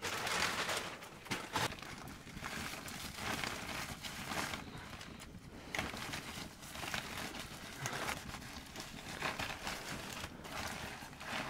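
Plastic sacks and plastic bags rustling and crinkling as they are rummaged through by hand, in a series of bursts with small clicks.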